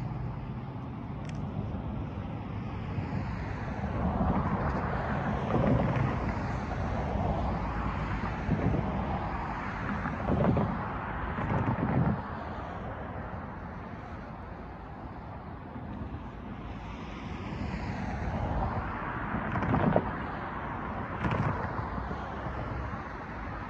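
Cars driving across the railroad grade crossing, their tyre noise swelling and fading as each passes, with a few sharp thumps as wheels go over the rails. Wind buffets the microphone.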